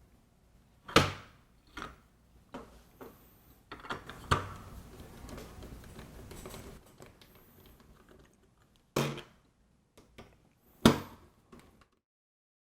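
Several sharp clicks and knocks with softer tapping and rustling between them, like small hardware being handled on a work surface; the loudest come about one, four, nine and eleven seconds in.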